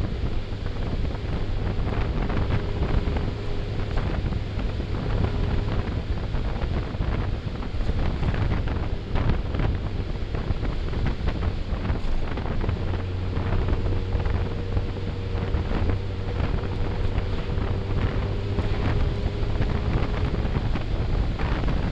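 Wind rushing over the microphone of a moving motorcycle, steady throughout, with the motorcycle's engine running underneath.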